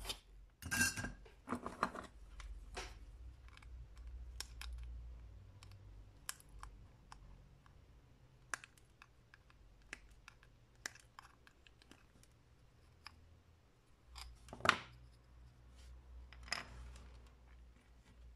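Flush side cutters snipping the wire leads of components on a small circuit board, a series of sharp clicks, the loudest about three-quarters of the way in, mixed with light ticks of small parts and tools handled on a wooden bench.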